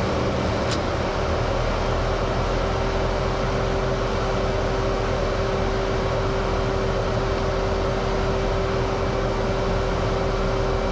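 Steady noise of the jet engines and rushing air inside the cockpit of a Blue Angels F/A-18 in a tight banked turn, with a steady hum that sets in about a second and a half in. A brief click comes under a second in.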